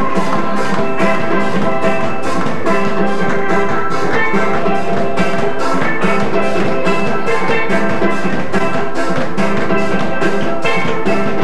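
Steel band music: bright ringing pan notes over a steady drum beat.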